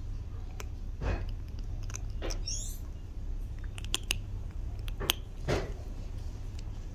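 A kitten crunching and chewing dry kibble: about eight sharp, irregularly spaced crunches over a low steady hum.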